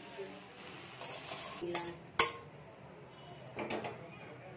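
Metal spatula stirring and scraping taro stolons in a metal kadai, with scattered clinks against the pan and one sharp clank about two seconds in.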